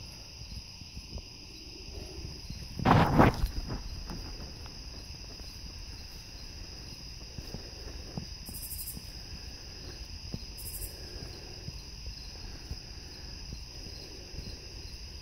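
Crickets trilling steadily at a high pitch, with a brief loud clatter about three seconds in and faint scattered clicks.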